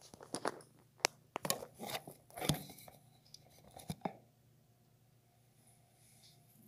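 Handling noise as the phone and earphone mic cable are moved about: a run of sharp clicks, crackles and rustles that stops about four seconds in, over a low steady hum.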